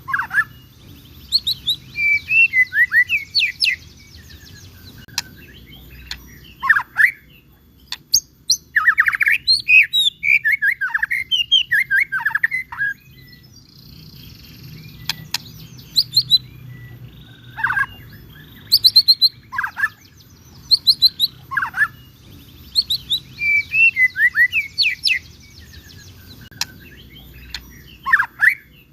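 White-rumped shama (murai batu) singing in full voice, a varied song of whistles and quick chattering notes delivered in bursts with short pauses between them.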